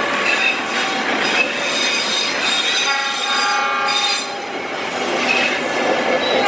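Passenger train coaches rolling past close by, their steel wheels squealing on the rails with several steady high tones over the running noise; a stronger cluster of squealing tones comes about three to four seconds in.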